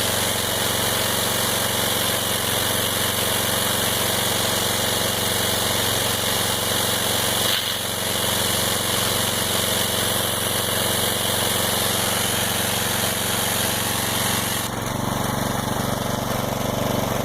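Gas-engine pressure washer running steadily, with a loud hiss of water spraying from the wand while air is worked out of the line. About fifteen seconds in, the hiss drops back and the engine note gets louder and lower.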